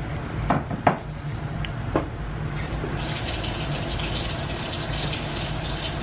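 Water running from a tap in a steady hiss that starts about halfway through, over a constant low hum. A few light clicks come in the first two seconds.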